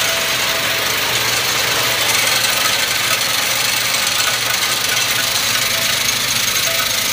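Vibratory bowl tumbler running steadily with a dense, even rattle of media and once-fired brass cases over a steady low hum.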